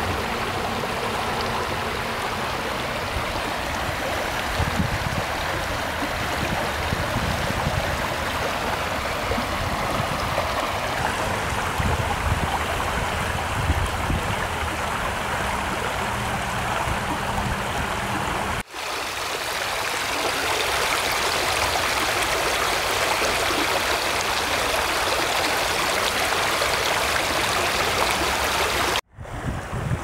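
Shallow creek water running over rocks: a steady rush and babble. The sound drops out for an instant about two-thirds of the way through and again just before the end, changing character each time.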